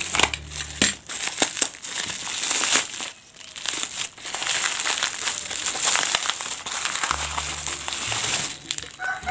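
Clear plastic wrapping and a paper mailer crinkling and rustling as hands pull them open, a near-continuous run of crackles with a brief lull about three seconds in.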